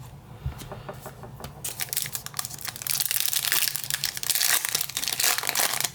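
Trading-card pack wrapper being torn open and crinkled by hand: a crackling rustle that begins about a second and a half in and grows louder from about three seconds.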